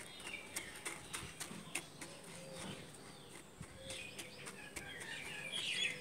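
Faint small birds chirping in the background, busiest in the second half, with light scattered gritty crunches of a hand pressing coarse sand down inside a concrete pot.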